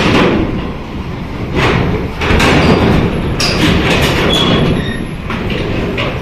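Heavy buses rumbling past with loud rattling and clanking of metal, rising and falling in swells.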